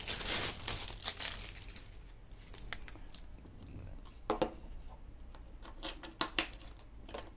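Plastic wrapping rustles briefly at the start. Then a few sharp metallic clicks and clinks, the loudest about four seconds in and again near the end, as the Emporio Armani AR1808's stainless-steel mesh bracelet and case are handled and set down on a wooden table.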